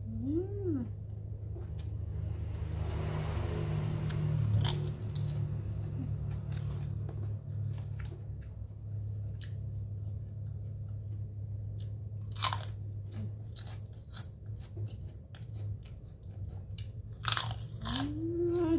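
Close-up chewing and crunching of food eaten by hand, with sharp crunches scattered through it, over a steady low hum. A short closed-mouth 'mmm' near the start and again near the end.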